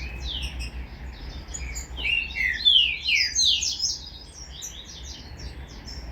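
A young green-winged saltator (trinca-ferro) singing: a run of quick, downward-sliding notes, loudest around the middle and thinning out toward the end.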